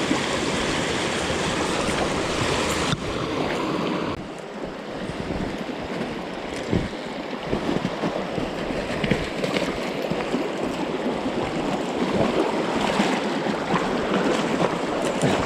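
Mountain stream rushing over rocks, a steady wash of water. About three and then four seconds in, it abruptly turns somewhat quieter and duller.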